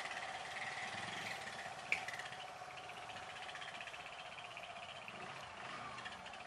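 Motorcycle running on the road, heard through a helmet-mounted action camera: a steady whine over an even mechanical hum, with one short click about two seconds in.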